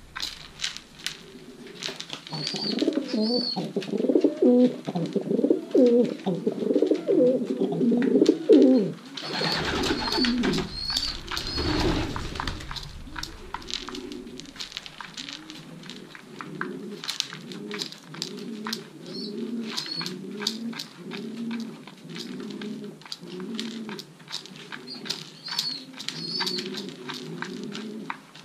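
Racing pigeons cooing over and over, several birds at once, loudest in the first third. Around the middle comes a few seconds of rushing noise, and faint high chirps sound now and then.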